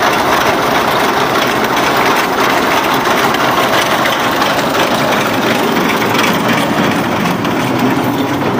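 Tractor engine running steadily, with the front-mounted reaper attached.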